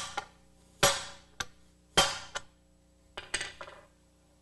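Ball-peen hammer striking a steel plate set over a driver, pressing a new ball joint into a lower control arm. Four ringing metal blows land about a second apart, each followed by a lighter bounce tap, and the last blow is lighter.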